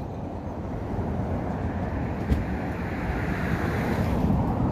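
Wind buffeting the microphone outdoors: a steady low rumble, with a single sharp click about two seconds in.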